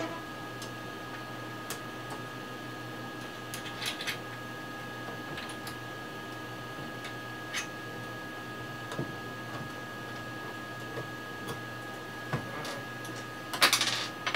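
Light scattered clicks of a screwdriver working in an open power supply's case, over a steady faint hum with a thin high whine. Near the end comes a louder metallic rattle of driver bits being handled in a tool kit.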